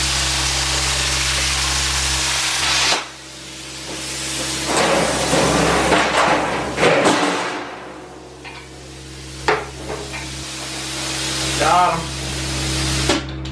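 Handheld plasma cutter trimming a strip off a steel sheet: a steady loud hiss with electrical hum that cuts off about three seconds in. The machine's hum and a quieter hiss carry on while the sheet metal is handled, with scrapes and a few clanks.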